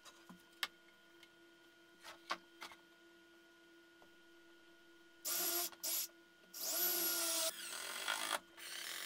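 A few light clicks and taps of handling, then a red Milwaukee cordless driver runs in five bursts of a few tenths of a second to about a second each, starting about five seconds in, driving screws into the clamped plywood handle.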